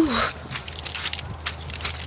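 Footsteps in wet marsh: a run of small crackling, squelching crunches underfoot.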